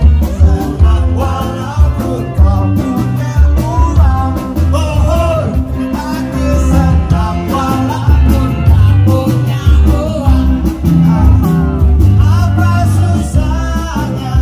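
Live rock band playing loudly: drums, electric guitars and bass under a singer.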